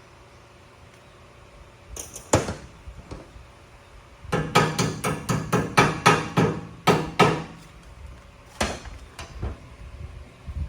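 Hammer blows on steel: two or three strikes about two seconds in, then a quick run of about a dozen blows at roughly four a second, then a few scattered strikes near the end.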